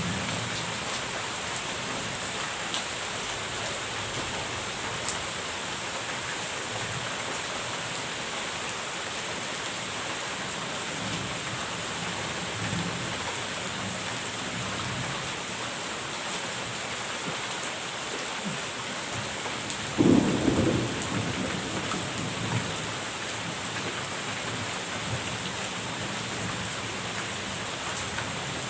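Steady heavy rain with distant rolling thunder, and a sudden loud thunderclap about twenty seconds in that rumbles on for a couple of seconds.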